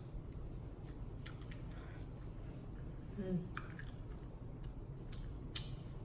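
Close-miked chewing of food, with a few sharp wet mouth clicks and smacks over a steady low hum.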